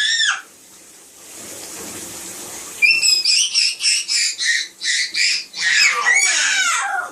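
A fast run of short, high-pitched squeaks, about three a second, after a few seconds of soft water noise, ending with a longer squeal that falls in pitch.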